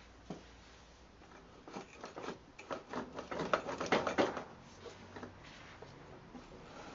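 Motorcycle drive chain clattering as it is worked off the rear sprocket by hand: a run of quick metallic clicks and rattles, loudest about halfway through, then dying away.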